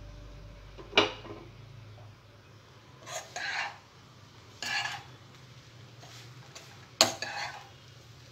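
A metal spoon stirring puffed rice in a nonstick pan: a few short scraping, rustling strokes, with two sharp knocks of the spoon against the pan, about a second in and again near the end.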